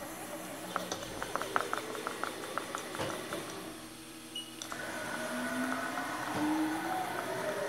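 Haas VF-series CNC mill being jogged by hand: a quick run of clicks from the control's jog handwheel, then the axis servo drives whining, their pitch sliding up and down as the axes move.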